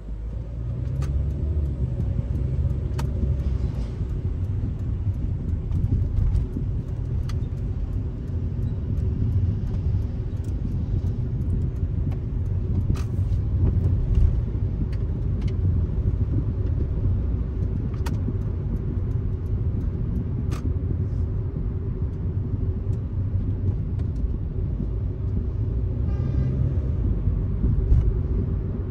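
A car driving at steady speed: continuous low rumble of tyres, road and engine, with scattered faint clicks.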